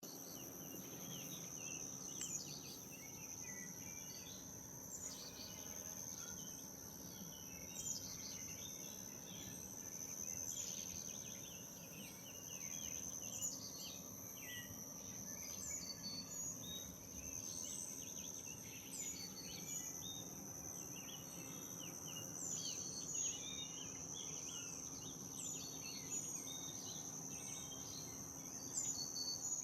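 Outdoor garden ambience: a steady high-pitched insect drone with many small birds chirping and twittering over it, and one short high call repeating every couple of seconds.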